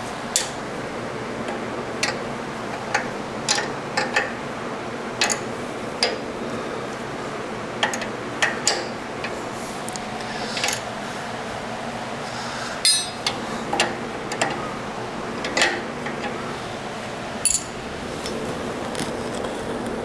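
Metal hand tools clinking and clattering as they are handled and tried on a nut: a couple of dozen sharp, irregular clicks, with a short rattle about 13 seconds in, over a steady background hum.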